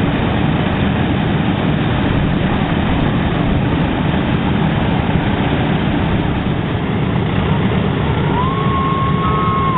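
The B-17's four Wright R-1820 Cyclone radial engines running with a loud, steady drone. A thin, steady high tone slides in and holds briefly near the end.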